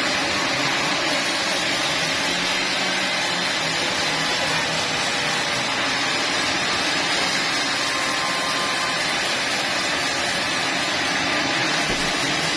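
Sawmill machinery running: a steady, even mechanical noise that does not change.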